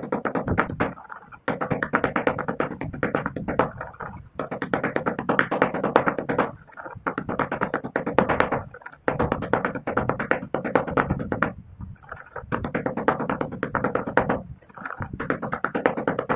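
White stone pestle grinding and crushing gritty brown powder in a stone mortar: quick scraping, crunching strokes in bouts of about two seconds, with short pauses between them.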